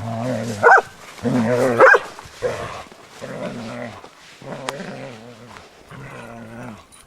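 Dog growling in repeated low stretches of about a second each, with two sharp barks in the first two seconds.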